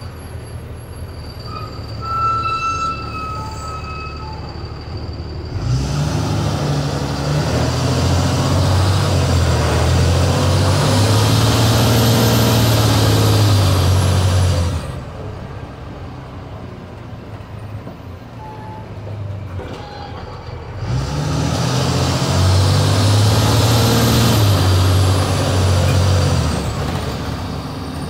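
A school bus's Cummins ISB 5.9 L turbo-diesel, heard from the driver's seat, running low at first, then pulling hard under throttle from about six seconds in for nine seconds. It eases off and then pulls hard again from about twenty-one seconds in, and a high whistle rises and falls during each pull.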